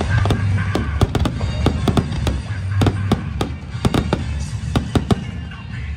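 Fireworks going off in a quick, irregular run of sharp bangs, about three a second, over show music with a heavy bass.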